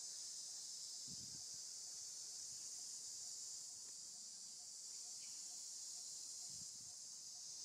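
Steady high-pitched drone of forest insects, with a faint regular ticking about twice a second. Two soft low thumps come about a second in and near the end.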